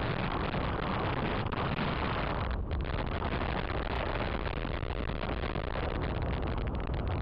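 Wind buffeting a small camera's microphone: a steady, heavy rumble of noise.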